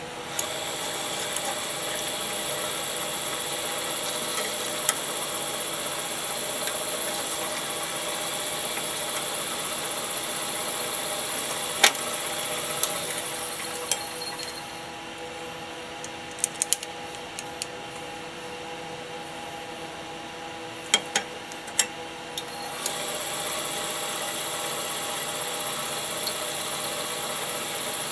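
An electric power tool motor runs steadily with a fixed whine. It eases off for several seconds in the middle, where a few sharp clicks and knocks of metal work can be heard, and then runs again.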